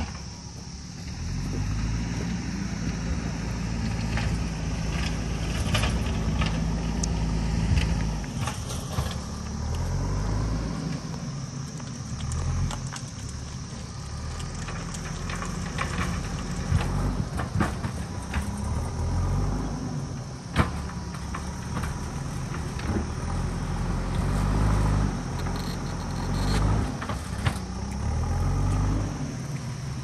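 JCB backhoe loader's diesel engine running and repeatedly revving up and dropping back as it works, pushing earth. Scattered sharp knocks and clanks are heard over it.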